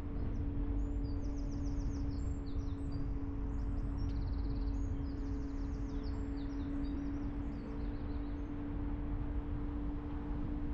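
Steady low rumble of a car driving, with a constant engine hum, while a small songbird sings a rapid run of high chirps and trills over it from about half a second in until around eight seconds in.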